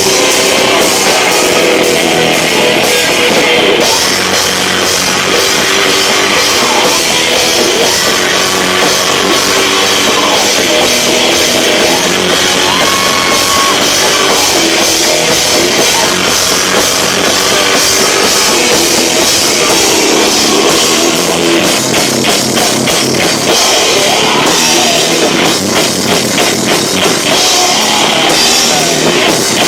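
Live rock band playing loud, with drum kit and guitar, heard through an overloaded camcorder microphone that distorts it.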